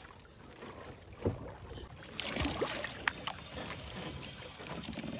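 Water sloshing and lapping around an outrigger bangka's hull, with scattered knocks and clicks from gear and people moving aboard and a dull thud about a second in.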